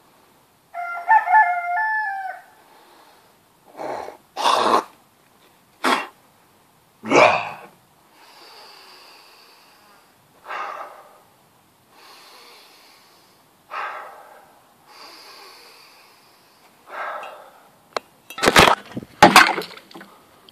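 A rooster crows once, a single wavering call about two seconds long. Then come several loud short bursts and softer breathy hissing sounds, and near the end a run of sharp clicks and knocks from the camera being handled.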